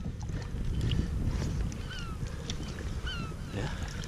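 A string of short, high squeaky calls, each dipping and rising in pitch, over a steady low rumble.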